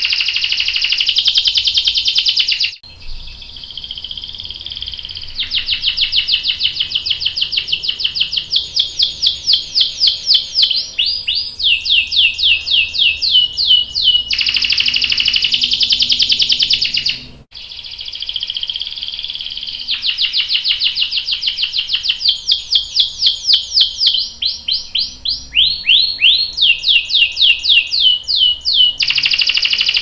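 Domestic canary singing: fast trills of repeated high notes alternating with long dense rolls, the song breaking off briefly twice.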